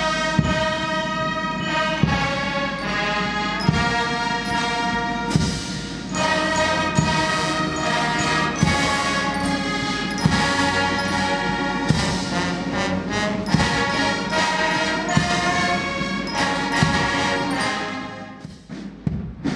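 School brass band, with euphonium and drums, playing a slow piece that the standing, saluting guests mark as the national anthem. Held brass chords over steady drum strikes, and the music ends about a second before the close.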